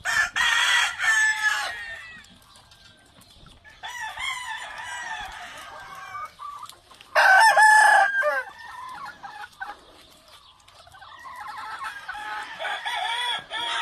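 Gamefowl roosters crowing several times, with hens clucking between the crows.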